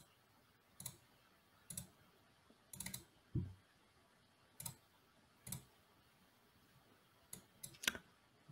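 Faint, scattered clicks of a computer mouse and keyboard, one or two at a time, about ten in all. A duller knock about three and a half seconds in is the loudest event.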